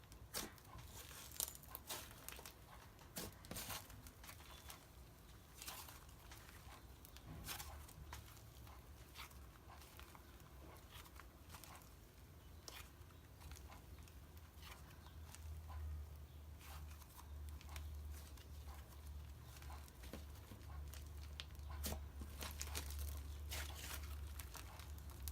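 Butter slime with fake sprinkles being squished and stretched by hand: faint, scattered little clicks and crackles. A low rumble comes in about halfway through.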